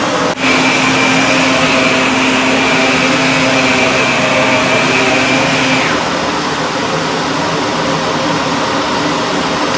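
Shark upright vacuum cleaner's motor running steadily. About half a second in the sound dips briefly and a higher whine joins it, which drops away about six seconds in while the motor keeps running.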